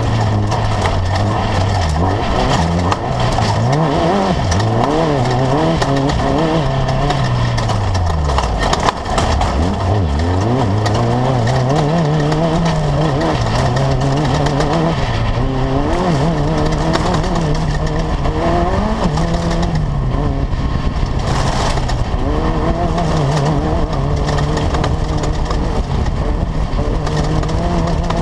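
Class 10 off-road race buggy engine at racing speed, revving up and down continuously as the driver works the throttle. The revs drop deeply and climb back about nine seconds in, with one sharp knock at the low point, over constant rushing noise.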